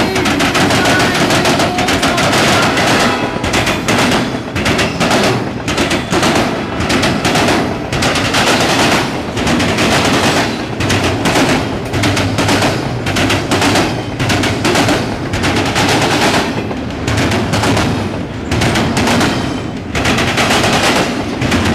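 Intermodal freight train passing close by, its wheels clattering over the rail joints in a fast, continuous run of sharp clicks over a low rumble.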